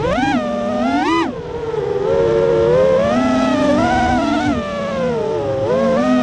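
FPV quadcopter's brushless motors and propellers whining as a stack of tones that climbs sharply with two quick throttle punches in the first second and a half, then rises and falls more slowly as the throttle is worked through the flight.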